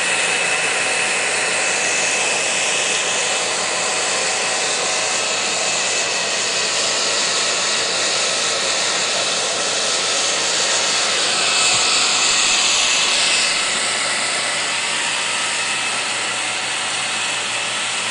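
Hand-held hair dryer running steadily while drying a wet puppy, a constant blowing rush with a thin high whine; the hiss brightens for a moment about twelve seconds in.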